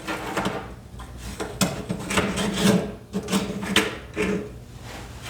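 Irregular scraping, creaking and clicking as a part on an original Xbox controller's circuit board is pried and forced to break it off.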